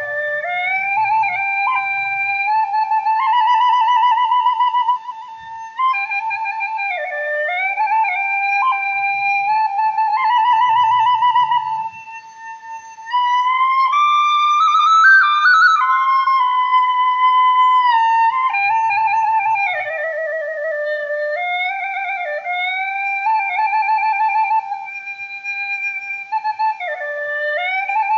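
Background music: a solo flute playing a slow melody of long held notes with vibrato, sliding between pitches.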